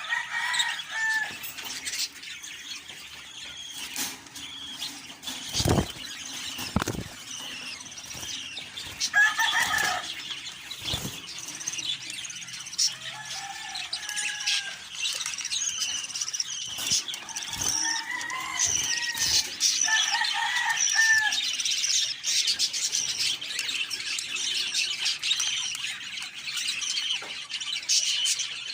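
A group of caged budgerigars chattering and warbling without a break. Louder, lower pitched calls break in near the start and several times further on, and there are a few sharp thumps, the loudest about six and seven seconds in.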